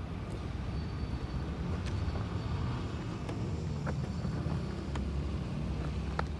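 Steady low outdoor rumble of background noise, with a few light clicks and knocks scattered through it, one near the end.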